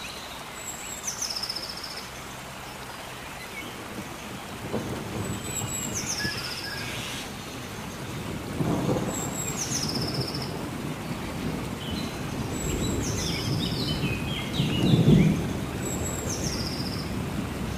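A bird repeating a high call that drops in pitch, about five times at intervals of three to four seconds, over a steady forest hiss. Low rumbles swell up several times, the loudest about three-quarters of the way through.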